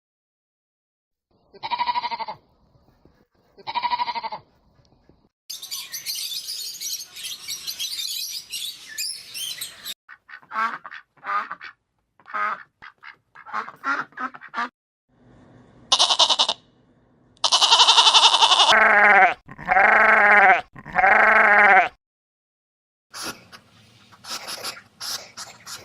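A run of separate farm animal calls in quick succession, among them goats bleating. Two short calls come first, then a stretch of hissy, chattering sounds and quick short calls, and three long calls that fall in pitch, about three-quarters of the way in, are the loudest.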